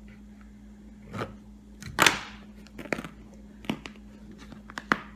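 Blade cutting and tearing into an American football's outer cover and lining. There is a short rasp about a second in, then a louder tearing rasp about two seconds in, the loudest sound, followed by a string of sharp clicks and snaps.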